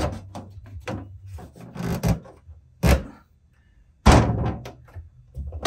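Wooden knocks and short scrapes from a pine paint-stirring stick being wedged by hand between a cabinet's plywood back panels as a spacer. About half a dozen irregular knocks, the loudest about four seconds in.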